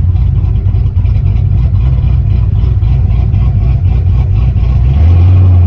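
Car engine and exhaust running with a deep, loud rumble. About five seconds in it settles into a steadier, louder low drone.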